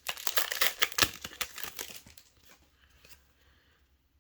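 Foil booster-pack wrapper crinkling and tearing as it is opened and handled for about two seconds, then dying down to faint rustles.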